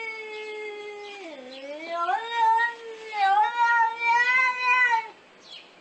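Domestic cat yowling in one long, drawn-out call that dips low in pitch about a second and a half in, then rises and wavers before breaking off about five seconds in.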